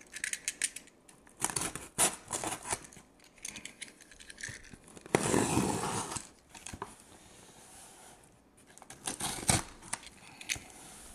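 A cardboard shipping case being opened by hand: packing tape cut and torn in a series of scratchy strokes. The loudest is a longer rasp about five seconds in, with another shorter one near nine seconds.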